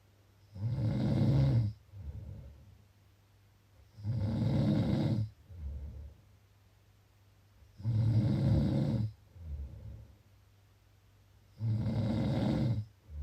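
Someone snoring steadily: four loud, rasping snores about every four seconds, each followed by a shorter, softer breath sound.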